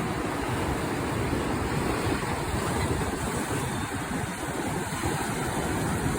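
Steady rush of ocean surf from big waves, with wind buffeting the microphone.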